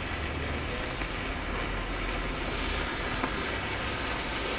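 A cake soaked in liquid oxygen burning in a metal tray, giving a steady rushing flame noise, with one faint tick about three seconds in.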